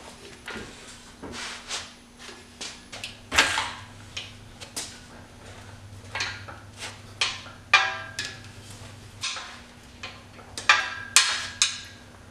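Irregular knocks and metallic clanks, a few ringing briefly, as an engine slung from a shop engine hoist is handled and jostled into position. The loudest clanks come a few seconds in, near eight seconds and near the end.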